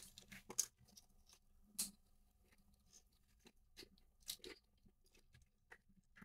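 Faint, scattered small clicks and scrapes of plastic parts as the drifting Joy-Con analogue stick module is worked loose and lifted out of the controller.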